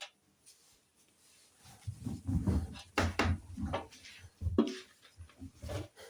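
Hoover washing machine starting its cycle: a series of irregular clunks and knocks from the machine, beginning about a second and a half in after a near-quiet pause.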